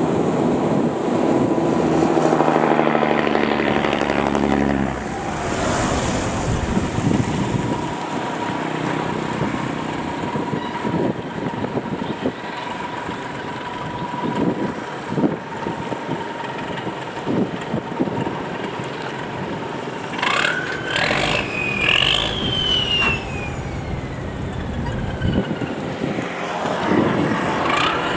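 Boat engines running on a canal: a low engine hum for the first five seconds, then high-pitched whines that rise and fall in the last third as engines rev or pass by.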